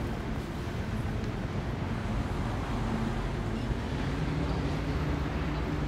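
Steady city street traffic noise, with the low hum of a motor vehicle engine running underneath.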